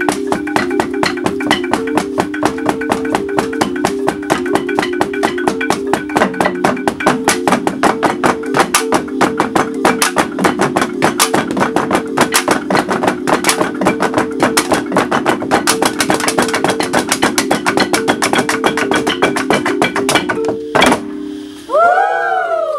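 Traditional Central Highlands bamboo instrument ensemble playing a repeating melody of low notes over fast, dense clicking percussion. Most of it stops abruptly about 21 seconds in, and a few short wavering tones follow near the end.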